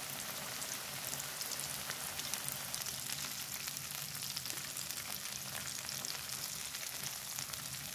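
Breaded chicken breast skewers deep-frying in hot oil: a steady sizzle dotted with many fine crackling pops.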